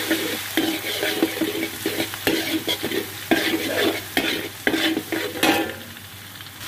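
Slotted metal spatula scraping and tossing crushed garlic and bird's eye chillies in a hot wok, over a light frying sizzle. The strokes come about twice a second and ease off near the end.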